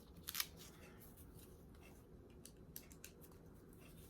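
Faint handling noise from a nylon watch band and watch being moved in the hands: a brief crisp rustle about half a second in, then light scattered ticks over quiet room tone.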